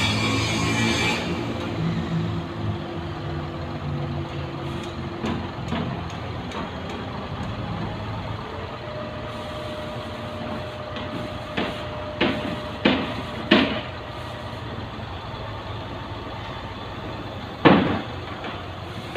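Diesel engine of construction machinery running steadily, working harder in the first few seconds, with a short hiss at the start. Sharp metallic clanks come four times in quick succession in the second half and once more, loudest, near the end.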